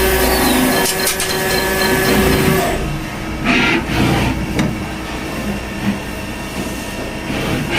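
CNC machine-shop machinery running: a steady hum with several held tones, changing abruptly about three seconds in to irregular clunks and short bursts of noise.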